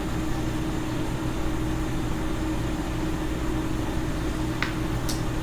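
Steady low background hum with a faint even hiss, with two short faint clicks near the end.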